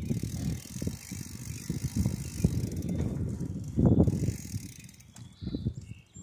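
Bicycle rattling and knocking as it rolls along a paved trail, jolted by bumps in the asphalt; the loudest knock comes about four seconds in.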